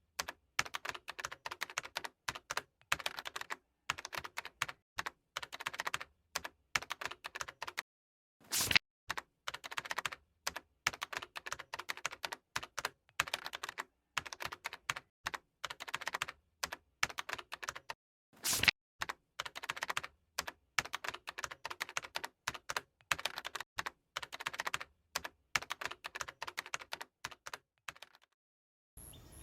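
Computer keyboard typing in fast runs of key clicks with short pauses, and a harder single keystroke twice, about a third and two thirds of the way through.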